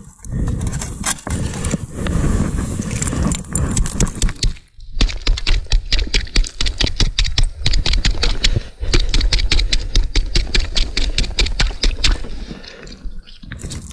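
Close scraping and crunching on snow-covered ice, with a fast run of sharp scrapes and clicks from about five seconds in, as tangled pike tip-up lines are handled at the hole.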